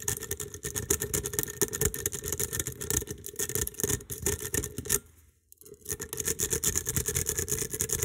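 A steel lock pick raking fast in the keyway of a Bricard Zeiss-type cruciform pin-tumbler cylinder, making a rapid run of metallic scratching clicks. It stops for about half a second about five seconds in, then starts again. The pins have been over-lifted to their highest position, and the raking runs while the tension is eased bit by bit so that they drop to the shear line.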